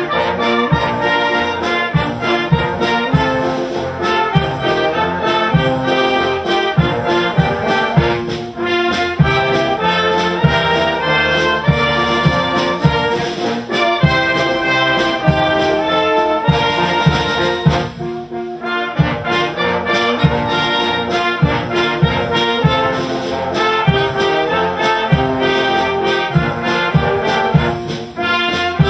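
Scouts' brass band playing a tune, brass over a steady drum beat.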